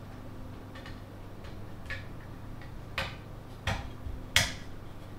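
Raspberry Pi Compute Module 5 being pressed down onto its IO board's connectors: a few faint clicks, then three sharper clicks about two-thirds of a second apart in the second half, the last the loudest, as it seats.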